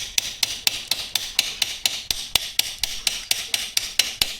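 Rapid, even metal-on-metal tapping, about four to five strikes a second, as the rear wheel axle of a Yamaha FZS V3 motorcycle is knocked through to slide it out, struck with a makeshift tool because no hammer is at hand.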